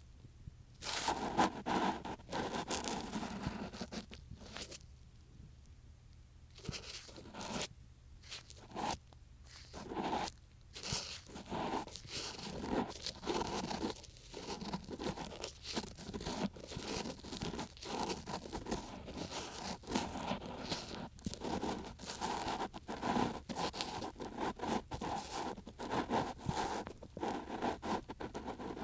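An ear pick scratching and scraping in an ear, close up, in quick irregular strokes with brief pauses, including a longer pause about four seconds in.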